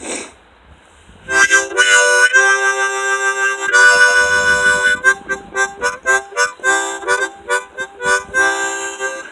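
Harmonica played in chords: a few held chords first, then a run of short, quick notes.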